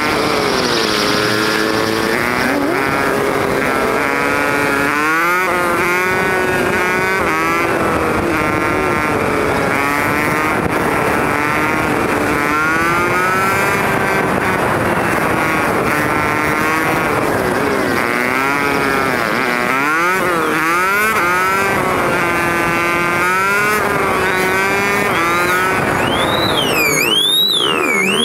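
Honda CT110 postie bike's single-cylinder four-stroke engine revving up and easing off again and again as it rides through traffic. Near the end an ambulance siren starts, a high tone sweeping up and down.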